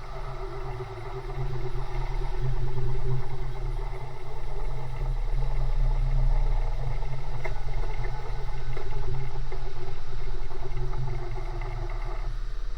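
CNC milling machine running with a steady mechanical hum, starting abruptly. Its higher tones drop away near the end.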